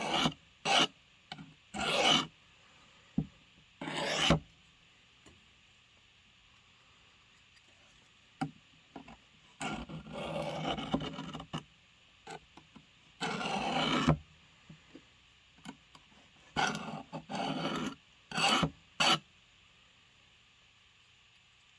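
A steel blade stroked across a sharpening stone: a series of short rasping passes, some single and some in quick pairs, with pauses of several seconds between groups.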